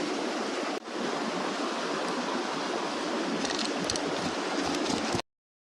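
Mountain stream rushing steadily. It drops out for an instant a little under a second in, then stops abruptly just after five seconds.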